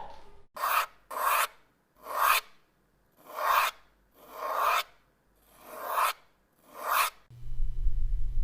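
A series of about seven short swoosh sound effects, each a quick rush of air-like noise, several swelling up and cutting off sharply. Near the end a steady low rumble begins.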